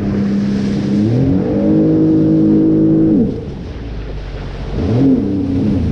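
Jet ski engine throttling up, holding speed, then easing off after about three seconds and opening up again near the end, with wind and water rush underneath.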